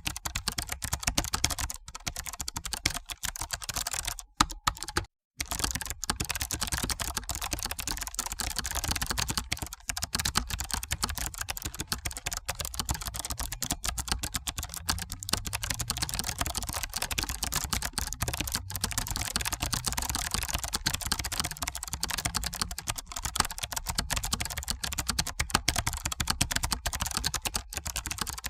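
Continuous fast typing on a computer keyboard: a dense, unbroken patter of key clicks that cuts out for a split second about five seconds in.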